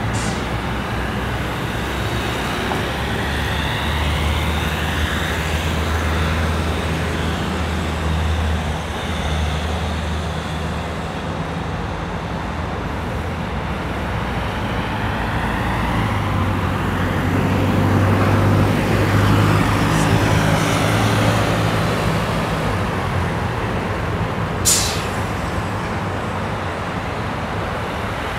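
City road traffic: a steady wash of tyre and engine noise, with the low drone of a heavy vehicle's engine swelling twice, and a short sharp hiss near the end.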